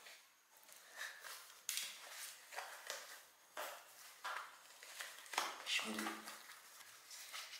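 Faint rustles and soft knocks of handling wet riding gear, short sounds coming about every half second to a second. A brief voice near the end.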